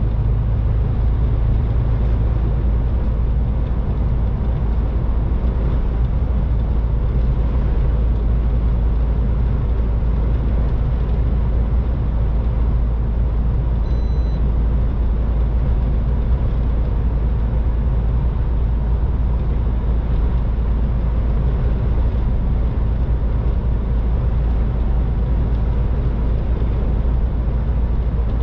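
MAN TGX 18.510 truck running steadily at motorway speed: a constant low drone from its straight-six diesel engine mixed with tyre and road noise, heard from inside the cab.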